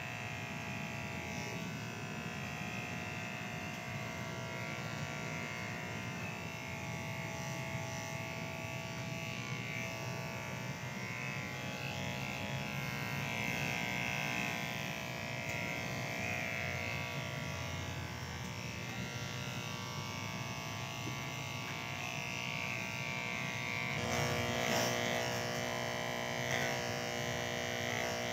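Barber's electric hair clippers buzzing steadily during a haircut.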